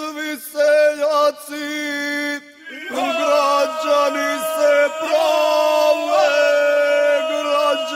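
Ganga, the traditional unaccompanied village singing of the Imotski region, sung by male voices as loud, rough, held notes. Short phrases with brief breaks at first, then about three seconds in the sound thickens and grows louder into one sustained close-knit chord.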